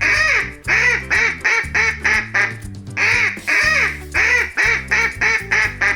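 Duck quacking in two runs of rapid quacks, each run opening with a longer quack, over children's background music.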